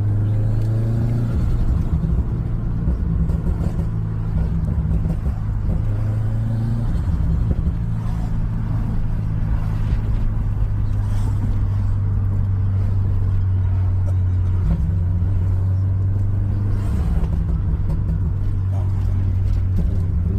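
Car engine running with a steady low drone, its pitch barely changing, with brief rising glides near the start and near the end.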